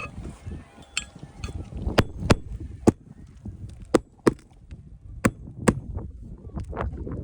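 A series of about seven sharp knocks at uneven intervals, over a low rumble of wind on the microphone.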